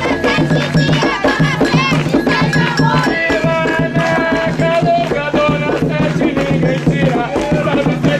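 Umbanda devotional chant (ponto cantado): several voices singing over shaken rattles and steady percussion.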